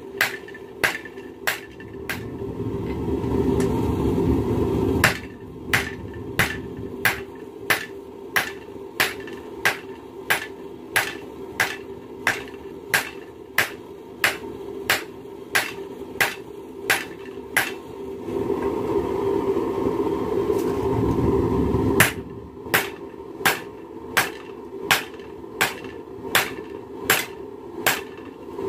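Hand hammer forging a red-hot railroad spike on an anvil: sharp metal-on-metal blows, about three every two seconds. The blows stop twice, for about three and four seconds, and a steady rushing noise fills each gap.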